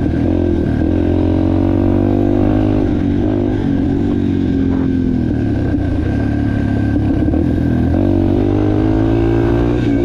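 Yamaha TT-R230's single-cylinder four-stroke engine running under way on a trail ride. Its pitch eases off a couple of seconds in and climbs again with throttle near the end. The engine is running well on a freshly cleaned carburetor.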